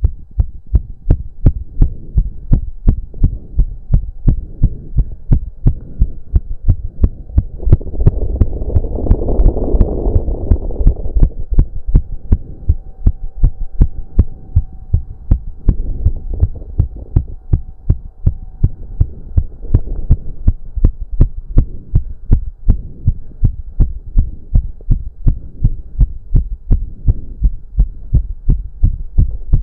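A man's heartbeat, fast and pounding, racing from intense cardio exercise, with a faint steady hum under it. A heavy breath swells up about eight seconds in and fades by about eleven seconds.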